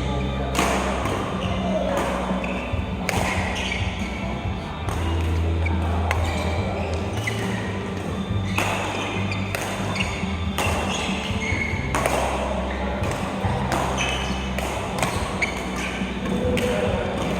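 Background music with a steady bass line, with occasional sharp clicks of billiard balls being struck.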